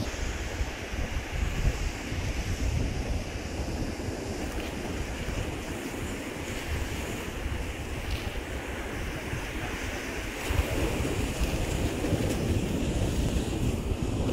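Surf washing onto a sandy beach, with wind buffeting the microphone in uneven low gusts that grow a little stronger near the end.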